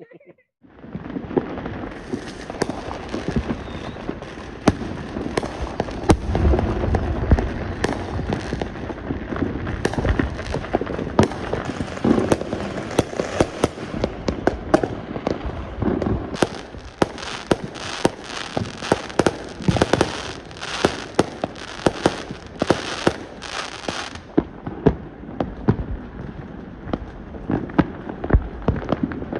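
Many fireworks going off at once: a continuous dense crackle of firecrackers mixed with frequent sharp bangs and low booms, starting about a second in.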